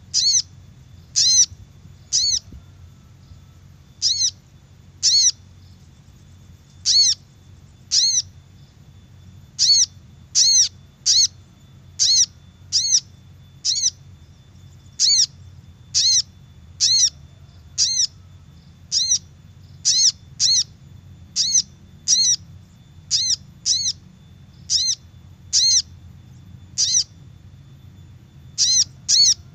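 Sogok ontong (spiderhunter) lure call: short, sharp, high call notes repeated at uneven intervals, often in quick pairs, over a faint low steady hum.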